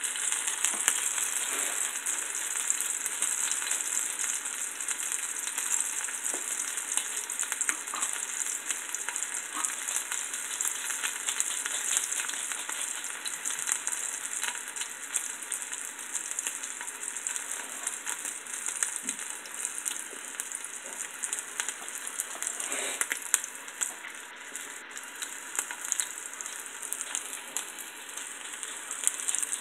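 A floured fish fillet frying in hot oil in a pan: a steady sizzle dotted with many small pops, easing off slightly toward the end.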